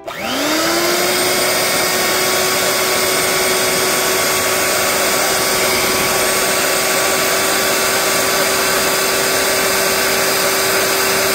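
Electric hand mixer switched on: its motor whine rises quickly to speed, then runs steadily as the beaters whisk pancake batter.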